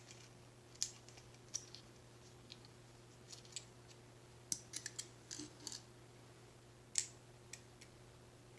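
Scattered small, sharp clicks and taps as the red dot sight is handled just after its battery is fitted, over a faint steady hum.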